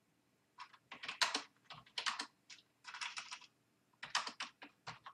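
Typing on a Microsoft Media Keyboard 3000, a wired membrane keyboard: flurries of quick key clicks starting about half a second in, with short pauses between runs.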